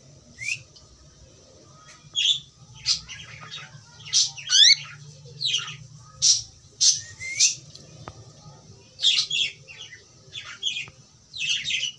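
Pet cockatiel calling: a string of short, shrill chirps and squawks, some sliding down in pitch, a dozen or so at uneven intervals.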